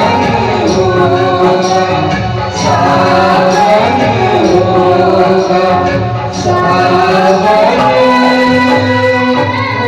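Hindi film song performed live: singing over instrumental accompaniment, with a melody moving in pitch throughout.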